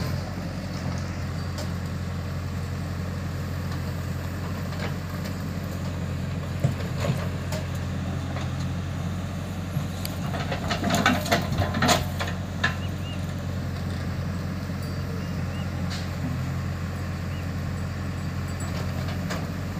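Diesel engines of a Mahindra 575 DI tractor and a JCB 3DX backhoe loader running steadily, with a burst of clattering and knocks about halfway through from the loader at work.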